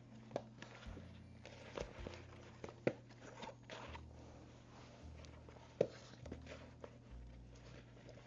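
Raw potato wedges being tossed in an oil and pickle-juice dressing in a mixing bowl: a soft, wet shuffling with scattered sharp clicks and knocks, the loudest about three and six seconds in.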